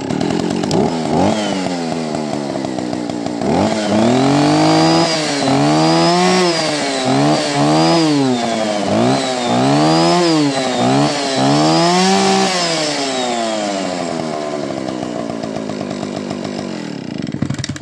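Stihl 041 chainsaw's 61 cc two-stroke engine running just after a pull start: it idles, is revved up and down over and over with the throttle, settles back to idle and cuts off at the end. It fires readily on leftover fuel still in the tank.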